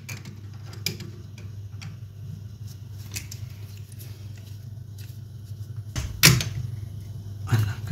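Two pairs of water pump pliers gripping and tightening the brass nut where a braided flexi tap connector joins a copper pipe: a few light metallic clicks, then a sharp clack about six seconds in and another near the end, over a steady low hum.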